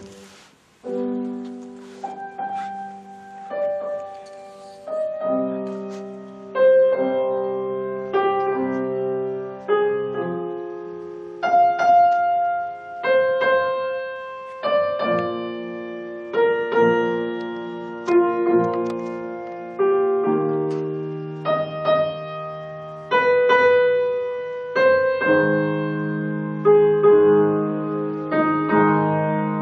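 Solo piano playing a slow, lyrical piece: chords struck about every one and a half to two seconds, each ringing and fading before the next. The piano comes in about a second in, after a brief gap.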